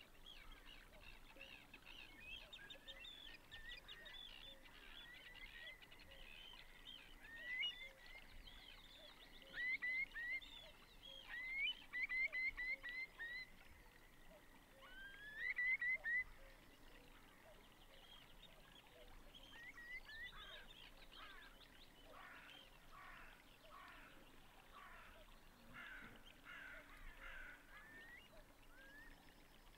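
Birds calling: clusters of short, quick rising whistled notes, loudest around ten, twelve and sixteen seconds in, then a faster run of repeated notes near the end.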